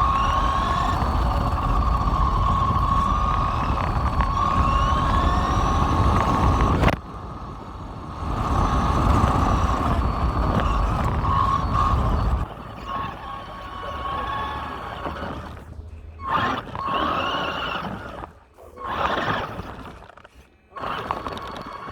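Electric RC truck motor whining, its pitch rising and falling with the throttle over a steady rumble. The rumble drops away about halfway through, and near the end the whine comes in short bursts with gaps between.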